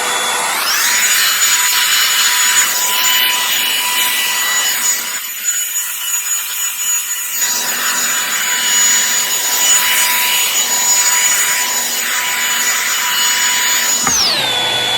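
Revlon One-Step hot-air brush running, its fan motor whining steadily over the hiss of blowing air while the brush is rolled through hair with a rubbing sound. The motor's pitch climbs about half a second in and drops back near the end.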